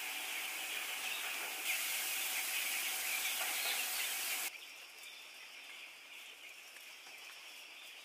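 A crowd of broiler chicks peeping together as a dense, high chatter over a steady hiss. It grows louder about two seconds in, then drops off abruptly about halfway through, leaving fainter peeping.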